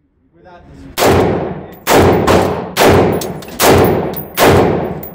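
Five single shots, a little under a second apart, from an AR-style rifle fitted with an OSS suppressor. Each shot has a sharp onset and an echoing tail in the steel-lined indoor range booth. A sixth shot starts right at the end.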